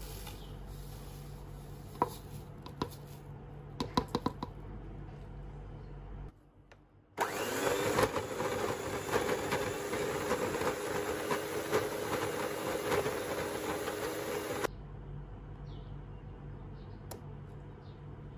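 Electric hand mixer beating cream cheese and sugar in a plastic bowl, a steady motor whine with the beaters churning. It starts about seven seconds in, runs for roughly seven seconds and cuts off abruptly. A few light clicks come before it.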